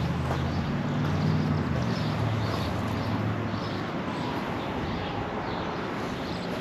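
A low engine drone that fades after about two seconds, heard over steady wind noise on the microphone.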